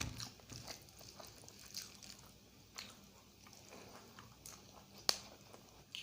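Close-up mouth sounds of someone chewing a big mouthful of egg curry and rice: wet smacks and small clicks, with one sharp click about five seconds in.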